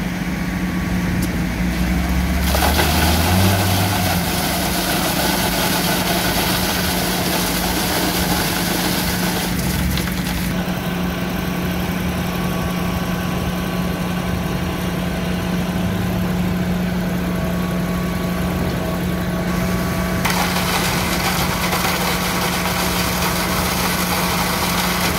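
Truck-mounted concrete boom pump's engine running steadily at one constant pitch. The higher-pitched noise around it changes abruptly about three times.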